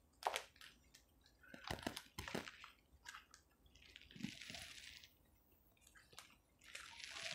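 Faint handling noise of tarot card decks being sorted in a plastic basket: scattered clicks and rustles, with a longer hiss about four seconds in.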